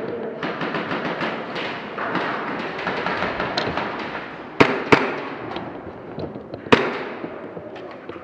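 Airsoft guns firing in rapid strings of sharp cracks and clicks, with three louder cracks a little past the middle.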